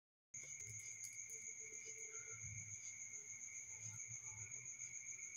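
Crickets trilling without pause in the background: a continuous high, finely pulsing chirr, cutting in just after a brief drop-out at the start, with a faint low murmur underneath.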